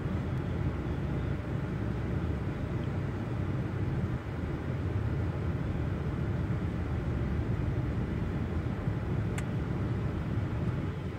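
Car engine idling while parked, a steady low rumble heard from inside the cabin, with one brief faint tick about nine seconds in.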